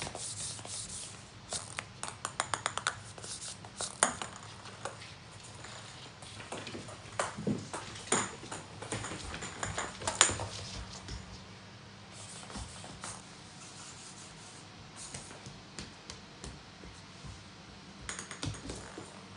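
Small toy balls bouncing and skittering on a wooden floor as cats bat them. There are runs of quick light clicks and a couple of sharper knocks, about four and ten seconds in.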